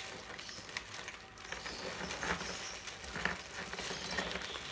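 Clear plastic packaging bag crinkling and rustling as hands open it and dig inside, with irregular small crackles.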